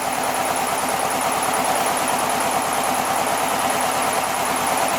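Air-cooled flat-four engine of a 1967 VW Beetle running steadily at idle on its freshly rebuilt Solex 34 carburetor, a fast, even pulsing hum.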